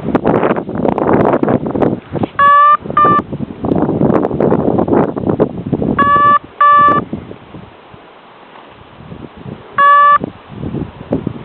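Strong gusty wind buffeting the microphone. Five short, loud beeps of one steady pitch cut through it: a pair a little over two seconds in, another pair around six seconds, and a single one near the end.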